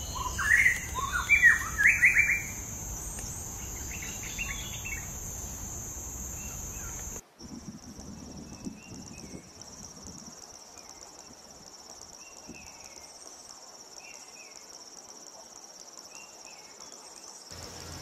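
White-rumped shama singing a few loud, whistled, sliding phrases over a steady high-pitched insect trill. About seven seconds in, the sound cuts abruptly to a different steady high insect drone with faint, sparse bird chirps.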